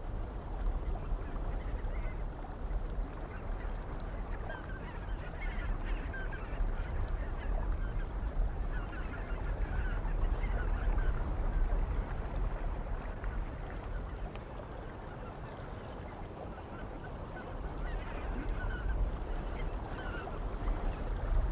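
A flock of birds calling in many short bursts, heaviest in two spells, over a steady low rumble.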